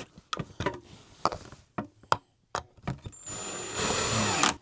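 Cordless Ryobi 18V drill with a hex bit snugging up crib bolts: a few sharp clicks and knocks of the bolts and bit being handled, then the drill runs steadily with a high whine for about a second and a half near the end.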